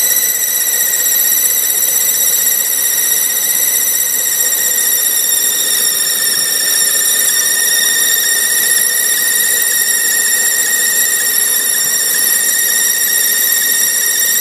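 BMW E46 330Ci power steering pump whistling: a steady high-pitched whistle with a ladder of overtones, the sign of a power steering fault.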